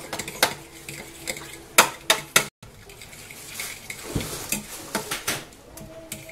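Metal fork stirring and scraping in a glass baking dish, mixing dissolved gelatin into frozen raspberry purée, with a few sharp clinks of the fork against the glass, loudest about two seconds in.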